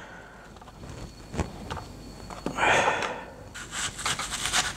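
Small paring knife cutting into a whole red onion, with crisp clicks and crunchy scraping as the blade works around the layers, coming thick and fast near the end. About halfway there is a short rushing sound, the loudest moment.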